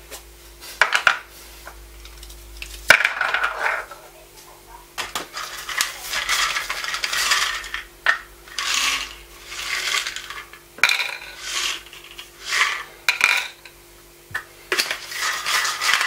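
Hard clear plastic BlenderBottle GoStak storage containers being handled: sharp clicks and knocks, with repeated short bursts of plastic scraping and rattling.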